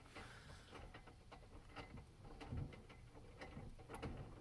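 Near silence in a small room, with faint scattered ticks and clicks and a soft low thump about two and a half seconds in.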